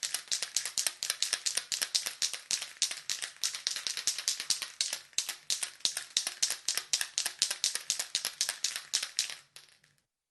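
Aerosol spray can being shaken, its mixing ball rattling inside in a fast, even rhythm of about five to six clacks a second. The shaking stops near the end.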